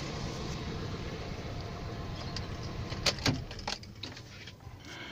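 The 2.2-litre four-cylinder engine of a 2005 Chevrolet LUV pickup idling. About three seconds in come a few sharp clicks from the key in the ignition, and the engine shuts off.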